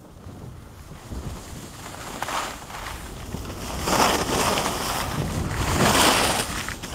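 Skis hissing and scraping over the packed snow of a piste, with wind buffeting the microphone, growing louder as the skier picks up speed and swelling about four and six seconds in.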